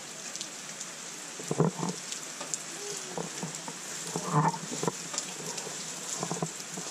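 Raw rice grains rustling in a steady hiss with fine ticks as hands stir and spread them across a woven bamboo tray. A few short, louder low sounds come about one and a half and four and a half seconds in.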